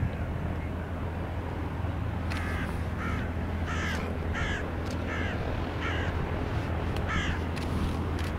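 A crow cawing: a run of about eight short, harsh caws, one roughly every two-thirds of a second, starting about two seconds in, over a steady low rumble.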